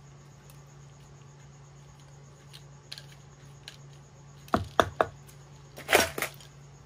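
A bolo knife's blade striking and cutting into the rim of a bamboo fishing-line spool to slice a slit for the hook: three sharp knocks about four and a half seconds in, then a louder quick cluster of strikes around six seconds.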